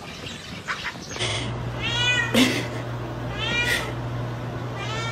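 A house cat meowing three times, each meow rising then falling in pitch, over a steady low hum that starts about a second in. A sharp click comes between the first two meows.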